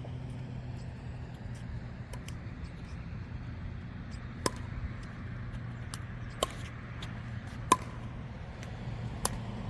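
Pickleball rally: paddles striking the plastic ball in turn, four sharp pops about a second and a half apart, over a steady low hum.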